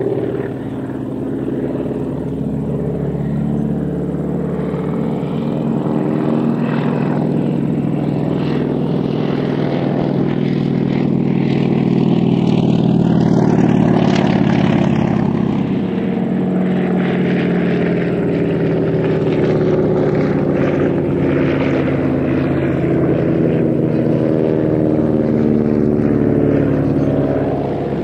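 CAC Ceres agricultural plane's Pratt & Whitney R-1340 radial engine and propeller droning steadily in a low flypast. It swells to its loudest about halfway through.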